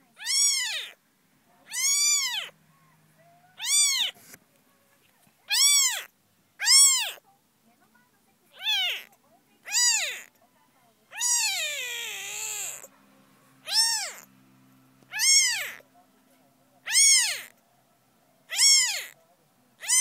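A very young kitten, its eyes just opening, mewing over and over. It gives about a dozen high-pitched calls, each rising and then falling, roughly one every one and a half to two seconds. A longer, drawn-out call about halfway through slides down in pitch.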